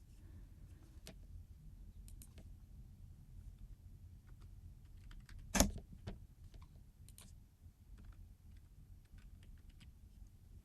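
Faint, scattered clicks of a computer keyboard and mouse, with one louder click about five and a half seconds in, over a low steady hum.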